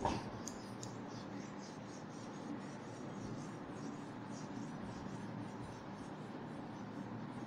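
Whiteboard duster rubbing across a whiteboard in a series of short wiping strokes, faint, over a steady low room hum. A single knock right at the start.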